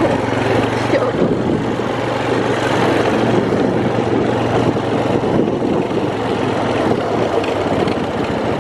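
Four-wheeler (ATV) engine running steadily while it is ridden over gravel.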